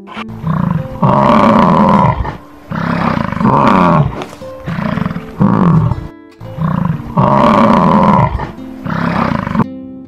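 A big cat roaring and growling, a series of loud calls one after another, over soft background music.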